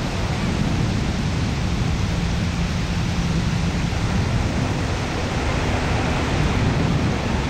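Steady rushing wind noise on the camera microphone, with a ragged rumble in the low end and no breaks or swells.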